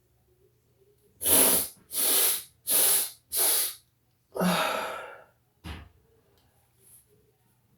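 A person sneezing, set off by black pepper: four quick breathy bursts about half a second each, then a longer one that trails off. A short knock follows soon after.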